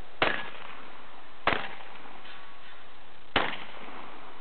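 A shotgun fired three times, each a sharp crack with a short tail, spaced between one and two seconds apart, over a steady background hiss.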